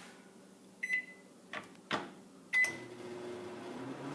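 New microwave oven beeping twice, two short high electronic beeps about a second and a half apart, with a couple of sharp clicks between them.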